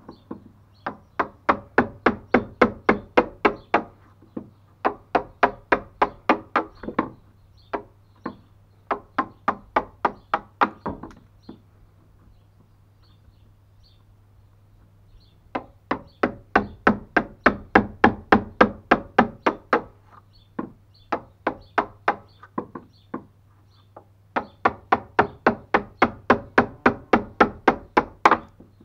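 A wood chisel being struck repeatedly as it chops out a notch in a timber stringer: sharp knocks about four a second, in runs of a few seconds with pauses between, the longest a few seconds before the middle.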